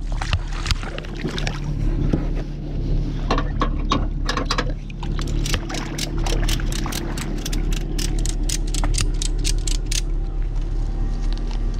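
A ratchet tow strap being cranked: a quick, even run of sharp ratchet clicks, about five or six a second, starting about halfway through and lasting about four seconds, after some scattered knocks of the strap gear being handled. A steady low engine hum runs underneath.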